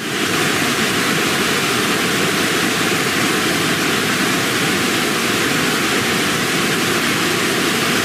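Loud, steady rushing noise that cuts off suddenly at the end.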